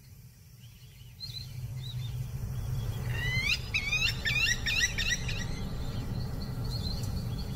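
Wild birds calling over a steady low rumble of ambience. In the middle comes a quick run of chirping, swooping high notes, then a fast series of short, high pips near the end.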